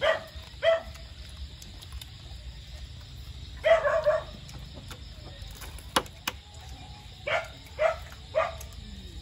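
A dog barking in short bouts: two barks at the start, a quick run of barks in the middle, then three more barks near the end. One sharp click about six seconds in.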